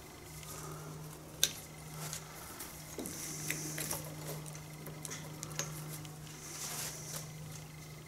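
Small screwdriver scraping and clicking against the metal gear and housing of a hedge trimmer gearbox while picking out old grease and the felt seal, with scattered light metallic clicks, one sharp click about a second and a half in. A steady low hum sits underneath.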